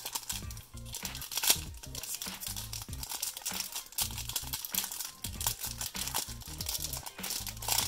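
Foil trading-card pack crinkling in the hands as it is torn open, in irregular sharp rustles with one louder crackle about one and a half seconds in.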